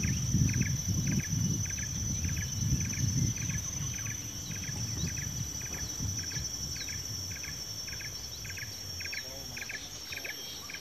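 Insects and birds calling: a steady high-pitched insect drone with a regular chirp repeating a little over twice a second, and short scattered bird chirps. Under them a low rumble, loudest in the first few seconds and easing off after.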